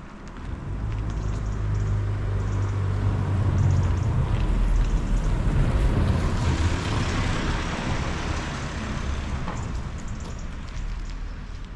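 A motor vehicle passing close by: a low engine hum builds over the first few seconds, then a wider rush of tyre and road noise peaks past the middle and slowly fades away.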